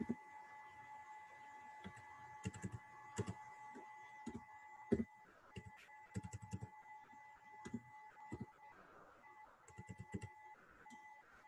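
Computer keyboard being typed on: quick clusters of key clicks as numbers are entered. A faint steady whine runs underneath.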